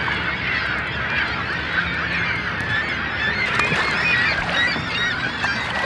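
A large flock of water birds calling without a break, many short overlapping calls at once, with a faint steady low hum underneath.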